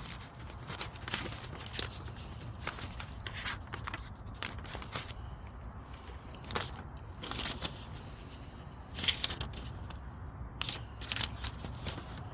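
Small metal tools and packing being handled on a bench: irregular clicks, light scrapes and rustling, with clusters of sharper clicks about a second in, around seven seconds in, and near nine and eleven seconds, over a steady low hum.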